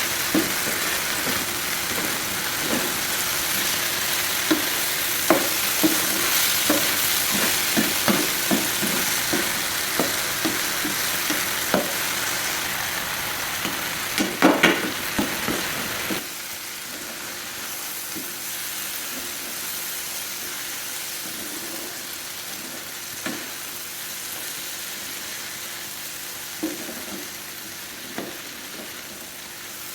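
Okra frying on a tawa with a steady sizzle while a utensil is stirred through it, with many short taps and scrapes against the pan. About halfway through, the sizzle suddenly drops quieter and the taps become occasional.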